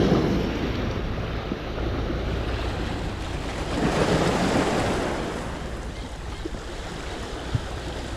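Sea waves washing and wind buffeting the microphone, in a steady rush with swells at the start and about four seconds in.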